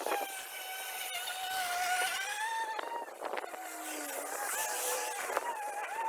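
EGO battery-powered lawn mower running, its electric motor giving a steady high whine that wavers slightly in pitch, with a few brief knocks.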